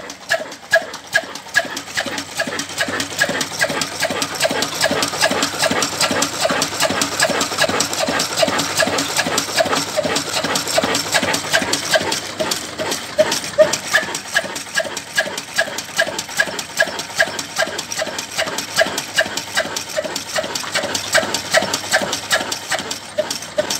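Old 25 HP stationary diesel engine running steadily, its exhaust beating evenly at about three beats a second.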